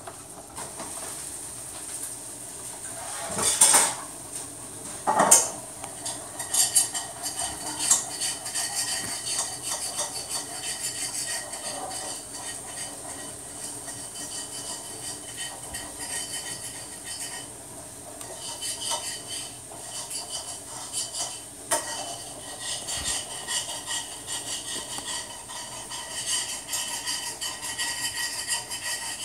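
Beyblade spinning top whirring and rattling against the plastic stadium floor, a steady clattering hum. There are two louder knocks a few seconds in.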